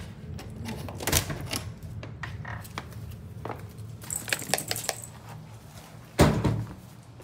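Scattered light clicks and taps with a brief metallic jingle about four seconds in, and a louder knock about six seconds in, over a steady low hum.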